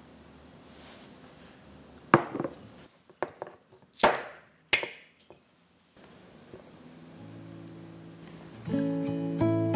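A sharp knock, then a few clicks and two louder cracks as the red cap of a small glass bottle of plum wine is opened by hand. Acoustic guitar music comes in near the end and grows louder.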